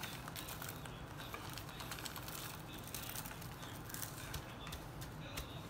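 Faint soft patting and rustling of a gloved hand pressing dry rub onto a raw brisket in an aluminium foil pan, over a low steady hiss.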